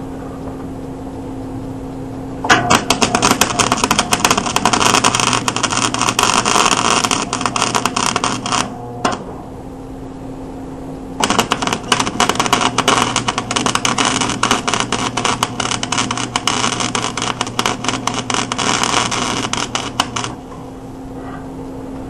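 Stick (arc) welder crackling and sizzling as the rod burns against steel, in two runs of about six and nine seconds with a short break between. A steady hum sits underneath and carries on alone in the pauses.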